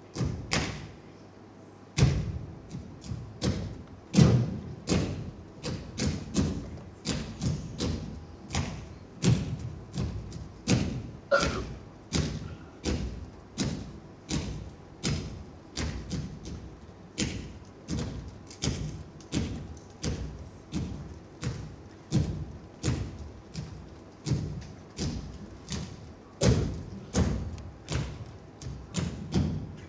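Bare feet stamping and stepping on a stage floor in a pizzica dance pattern: a run of sharp thuds, about two a second and somewhat uneven, starting about two seconds in, each ringing briefly in the hall.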